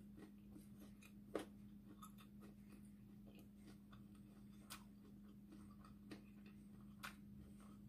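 Near silence over a steady low hum, broken by a few faint soft clicks of closed-mouth chewing, the sharpest about a second and a half in.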